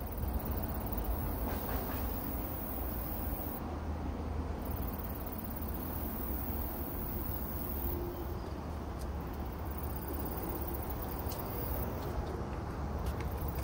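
Steady outdoor background noise: a low rumble with a faint high hiss and no distinct event.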